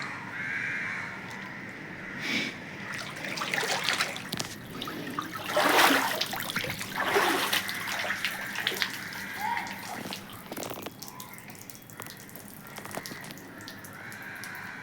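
Flood water splashing and sloshing in irregular bursts, the loudest about six seconds in.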